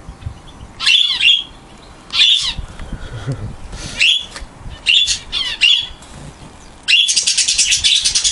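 A mixed flock of small cage birds (canaries, budgerigars and zebra finches) calling, with sharp high chirps in short bursts about once a second. Near the end this gives way to a fast run of rapidly repeated chirps.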